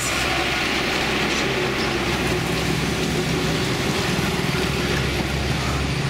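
A bus passing close by: its engine hums steadily over road noise.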